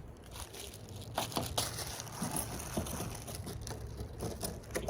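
Packaging rustling and crinkling as parts are handled and taken out of a box, with scattered light clicks and knocks.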